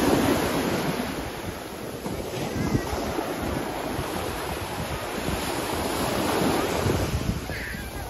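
Small ocean waves breaking and washing up a sandy shore close by, with wind buffeting the microphone. The surf swells loudest at the start and again about three quarters of the way through.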